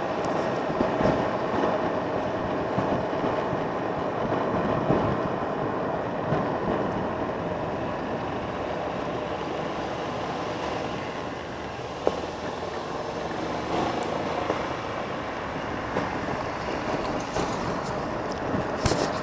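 Golf cart driving along a gravel road: a steady running noise with a few steady tones, its tyres crunching on the gravel and the cart jolting over bumps. A sharp knock sounds about twelve seconds in.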